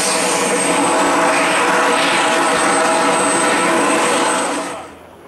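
F-16 fighter's jet engine running on the ground: a loud, steady whine with a high whistling tone over it, fading away about four and a half seconds in.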